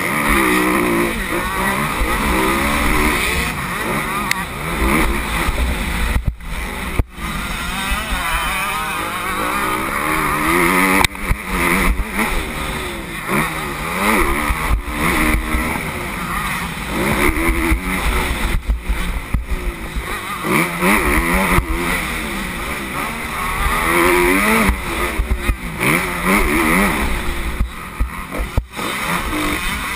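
Motocross bike engine revving up and down again and again as the throttle is worked and gears are changed, heard from a helmet camera with wind noise on the microphone. The sound drops out sharply for a moment a few times.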